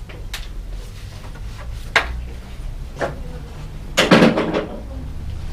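Metal tools and bicycle parts being handled: a few sharp clinks and knocks, the loudest a short clatter about four seconds in, over a steady low hum.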